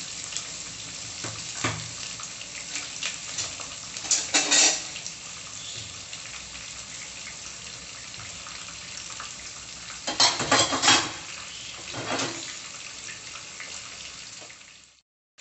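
Onion, ginger and garlic pastes sizzling in hot oil and ghee in a pot: a steady frying hiss with a few louder spurts, the biggest about four seconds and about ten seconds in. The sound fades out just before the end.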